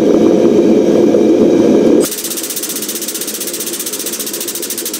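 Air-over-hydraulic 20-ton bottle jack's air pump running while the press squeezes red-hot steel. It makes a loud steady noise, then about two seconds in drops to a rapid, even pulsing of about eight strokes a second.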